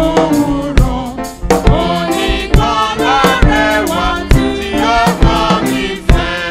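Live gospel praise singing: a man leading the song into a microphone with a choir, over drums keeping a steady beat of a little under one stroke a second.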